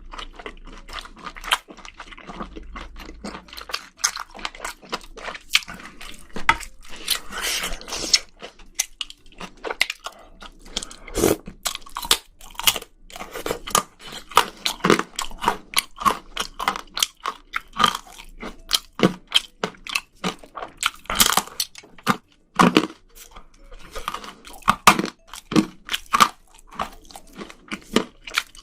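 Close-miked mukbang eating of spicy seafood: wet chewing and crunching with many sharp irregular clicks and smacks, several a second.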